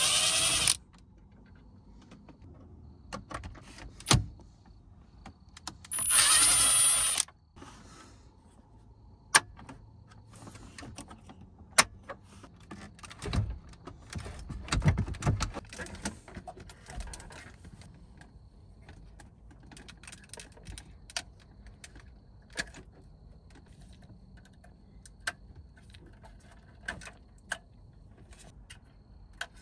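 Milwaukee Fuel brushless cordless driver whirring in two short bursts, in the first second and again about six seconds in, backing out the screws that hold a car's radio head unit. After that come scattered clicks and knocks, with a cluster of low thumps and rattles about 13 to 17 seconds in, as the head unit is worked loose and handled.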